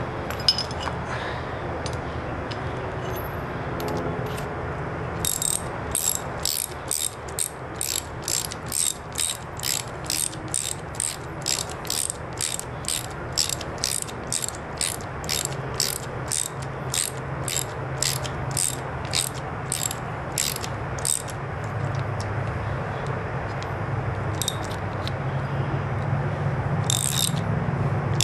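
Ratchet wrench clicking in a steady series of strokes, about two a second, then a few scattered clicks near the end. It is driving a fitting into the hose end of a stainless braided fuel line, over a steady low hum.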